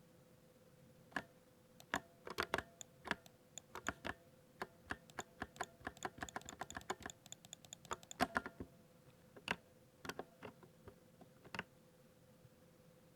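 Keystrokes on a 60% mechanical keyboard: irregular typing clicks, with a quick dense run of keypresses in the middle, then slowing to scattered single presses near the end. A faint steady hum lies underneath.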